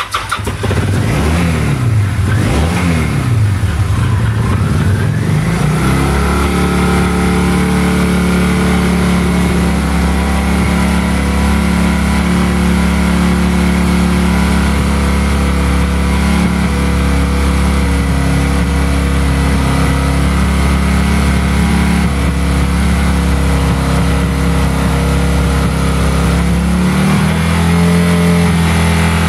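Kawasaki Vulcan 800 Classic V-twin engine revved up and down a few times at the start, then settling into a steady idle. Near the end the idle note steps up slightly.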